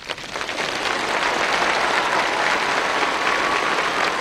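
Large crowd applauding, swelling over the first second and then holding steady.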